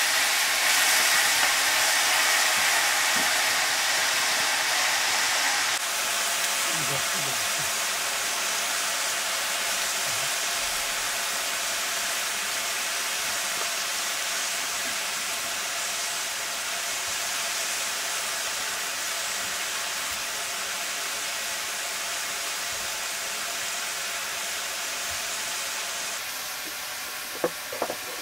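Chopped mustard greens sizzling and steaming in a hot black iron wok: a steady hiss that eases slightly after the first few seconds.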